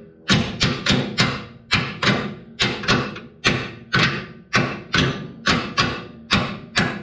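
Hammer blows on a steel suspension mount bracket welded to a truck frame, a quick run of sharp metal strikes about three a second, each ringing briefly, knocking the cut bracket and its captive nuts loose.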